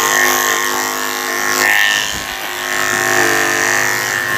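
Electric dog-grooming clippers running with a steady buzz as they clip a small dog's coat.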